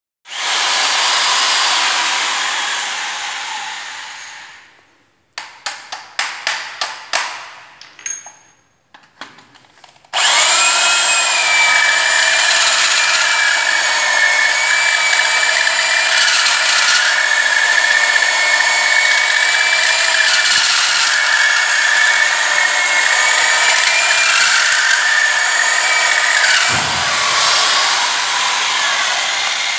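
Hand-held electric drill with a marble hole bit, drilling into a marble stair tread. It runs for a few seconds and is then pulsed in a string of short bursts. It then runs steadily with a whine for about sixteen seconds before winding down near the end.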